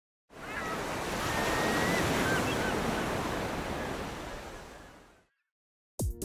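Ocean surf washing, fading in just after the start and fading out after about five seconds. Music starts right at the end.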